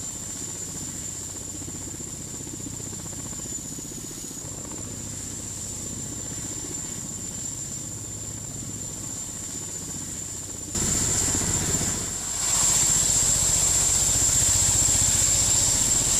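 Sikorsky-Boeing SB-1 Defiant coaxial-rotor helicopter in flight: steady rotor and engine noise with a rapid low beat and a thin high whine. It jumps louder about eleven seconds in and swells again a little later.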